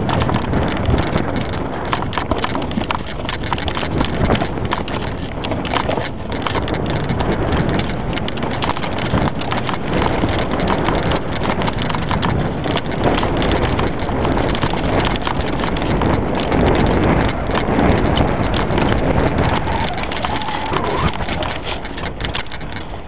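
Mountain bike clattering down a rough, rocky enduro trail: a dense, continuous stream of knocks and rattles from the frame, chain and suspension as the wheels hit rocks and roots.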